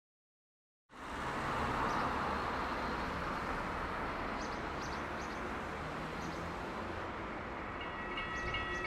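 Outdoor trackside ambience: a steady rushing noise that comes in about a second in, with a few faint high chirps over it. Near the end a pulsing, ringing tone sets in as a train draws near.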